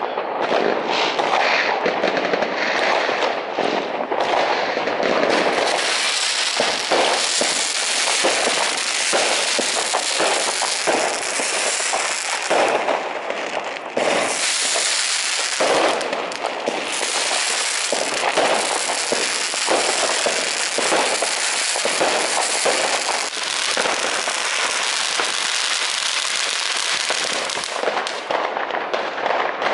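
Fireworks going off in many places at once: a dense, near-continuous crackle with overlapping bangs and no break.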